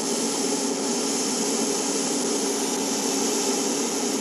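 TIG welding arc on thin aluminum, run on DC electrode positive with an oversize 1/8-inch tungsten under argon, burning as a steady hiss with a low hum underneath. This is the cleaning stage, with the oxide layer being stripped off before the puddle goes liquid.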